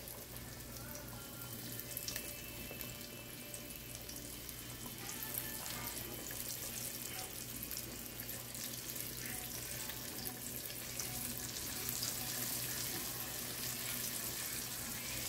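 Flour-dredged chicken tenders frying in hot oil in a pot: a steady sizzle with fine crackling from the bubbling oil, growing slightly louder as it goes.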